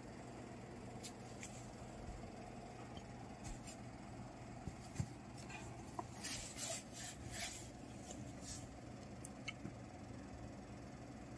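Faint rubbing and scraping with scattered light clicks over a low steady hum, busiest about halfway through.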